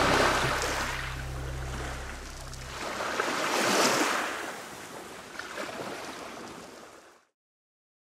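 Small lake waves washing onto the shore in two slow swells about four seconds apart, under the last low notes of background music, which stop about three seconds in. The sound fades out to silence shortly before the end.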